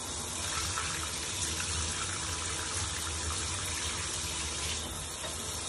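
Running water splashing steadily into an open drain that is partly clogged with hair and still drains slowly, leaving standing water.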